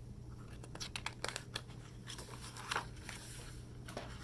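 Paper pages of a picture book being turned and handled: a string of faint crinkles and crackles, loudest a little before three seconds in.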